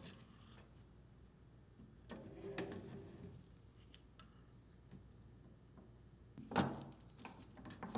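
Soft metallic clinks of channel-lock pliers working the nut on a metal diaphragm plate held in a bench vise: a few light clinks about two seconds in and a sharper knock near the end, with quiet between.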